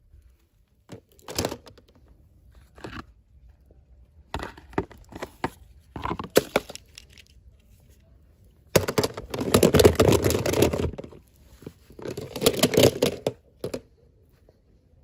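Packaging being torn open and crinkled by hand. Short rustles come first, then a longer, louder stretch of tearing and crinkling about nine seconds in, and another shortly after.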